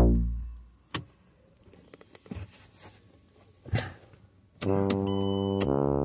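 Electrical sounds from a 2009 Mercedes C300 as a start is tried: a short whine falling in pitch at the start, a few clicks, then from about two-thirds in a steady electric buzz. The engine neither cranks nor runs.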